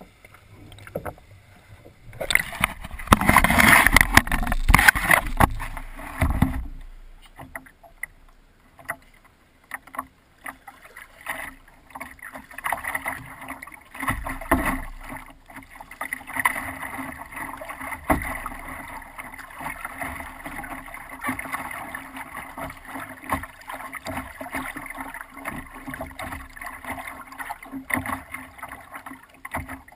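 Water splashing and lapping against the nose of a wooden paddleboard, close to the waterline. A loud rush of water about two to six seconds in, then a steady rippling wash with many small slaps.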